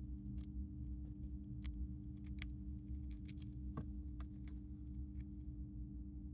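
Dwarf hamster eating from its food bowl: faint, irregular small crisp clicks of it nibbling and crunching food, over a steady low hum.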